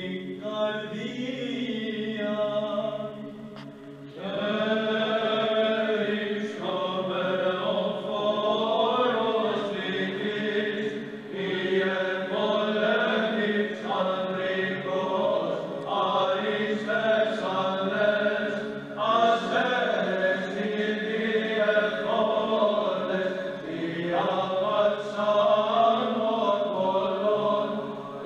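Male choir chanting Byzantine chant in unison, a moving melody over a low held drone note. The singing dips briefly about four seconds in, then comes back fuller.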